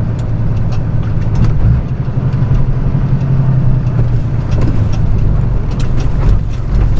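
Truck engine and road noise inside the cab while driving slowly: a steady low drone that shifts in pitch about two seconds in.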